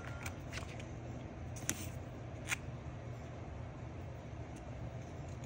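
Faint handling of paper stickers as they are pressed onto a planner page, with a couple of soft ticks, over a low steady hum.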